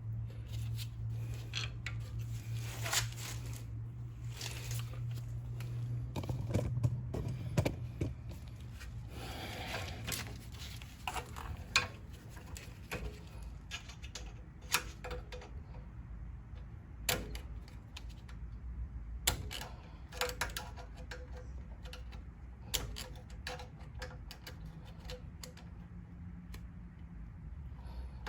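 Scattered light clicks and knocks of hand tools and metal parts being worked at a car's rear brake caliper, with a low steady hum for roughly the first six seconds.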